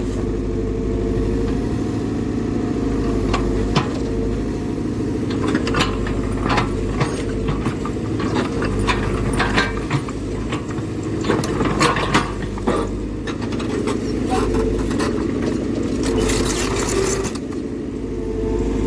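Diesel engine of heavy earthmoving equipment running steadily, with scattered sharp metallic clanks and knocks throughout.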